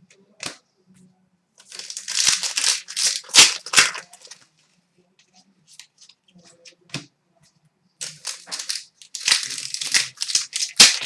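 Foil trading-card pack wrapper crinkling and crackling in two bouts as it is torn open and crumpled by hand.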